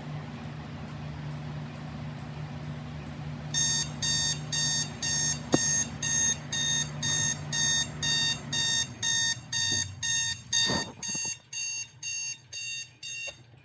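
Electric digital alarm clock's alarm beeping: a long run of short, evenly spaced high beeps, about two a second, starting about three and a half seconds in and stopping just before the end. A low steady hum sits underneath before the beeping starts.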